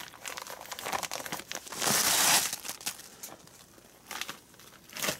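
Plastic bag of dark brown sugar crinkling and rustling as the sugar is shaken out of it, in irregular crackles with a louder rustle about two seconds in.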